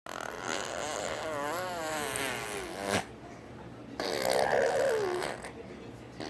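A baby of about ten months vocalising in two stretches of funny noises. The first lasts about three seconds, its pitch wobbling up and down and sliding lower at the end; the second, a buzzier one of about a second and a half, starts about four seconds in.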